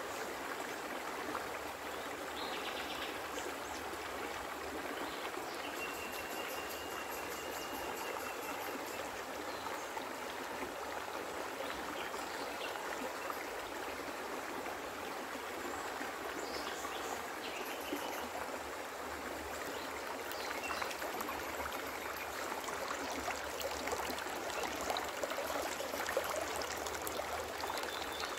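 Shallow river running over a stony riffle: a steady rush of flowing water.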